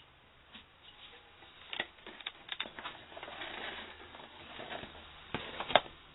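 Hand-handling sounds: scattered light clicks and taps, then a short stretch of rubbing or rustling, ending with two sharp clicks a little before the end, the second the loudest.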